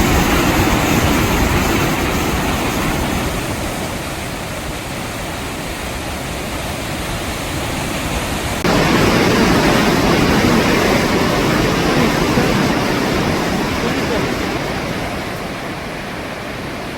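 Waterfall roar: a loud, steady rushing. It jumps louder suddenly about nine seconds in.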